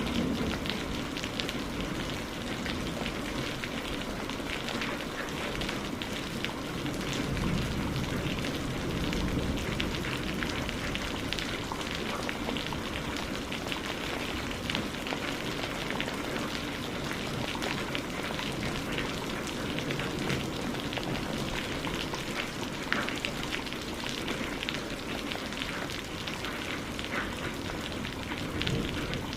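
Steady rain falling and pattering on a surface: an even hiss with many small drop ticks.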